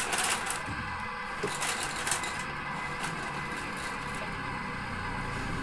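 Toy RC excavator's small electric motors and plastic gears whirring faintly and steadily, with a few light plastic clicks in the first two seconds.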